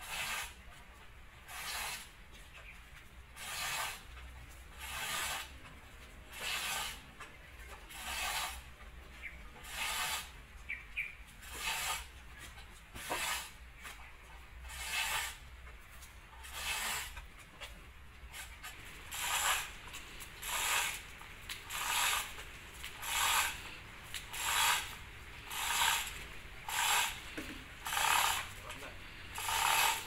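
Repeated scraping strokes of a long-handled tool digging packed mud out from between the track rollers of a bulldozer undercarriage. There is about one stroke a second, coming faster and sharper in the second half.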